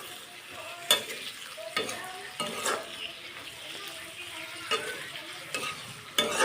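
Chicken frying in a pan and being stirred: a steady sizzle, with the spoon scraping and knocking against the pan about once a second, loudest near the end.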